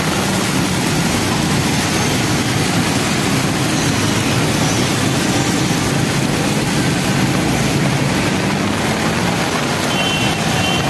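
Heavy rain pouring down on a waterlogged road with traffic, a steady hiss of rain and wet tyres over the low hum of running engines. Two short high beeps sound near the end.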